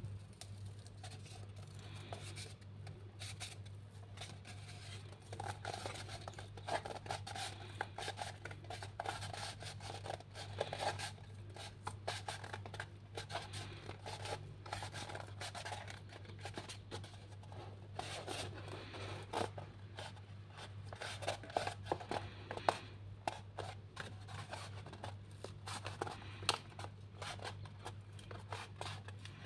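Cardboard toilet-paper tube worked by hand: fingers squeeze, flatten and crease it, with scraping and rubbing of skin on cardboard and many small crackles as it buckles. A steady low hum runs underneath.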